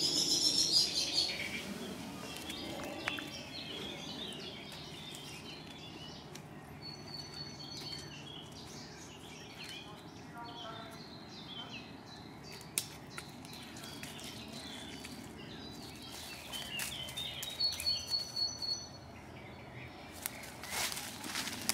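Woodland birds chirping and singing over a low outdoor background, busiest at the very start and again a few seconds before the end. A few sharp clicks come near the middle and near the end.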